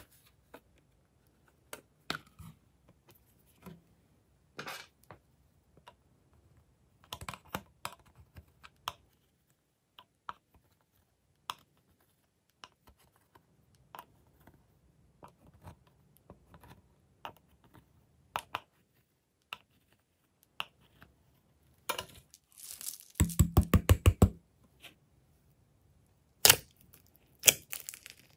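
Small clicks, taps and scrapes of a plastic eyeshadow palette being handled and its pressed pans scraped with a small tool. A quick run of about ten sharp taps comes a little past two-thirds through, and two loud crackling bursts come near the end.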